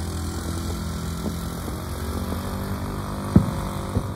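Aerial fireworks shells bursting: a few sharp booms, the loudest about three and a half seconds in, over a steady low engine-like drone.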